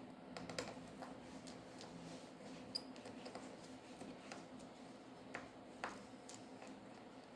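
Faint, irregular clicks and light taps of small hand tools working on a smartphone's internals during disassembly, over a steady low electrical hum.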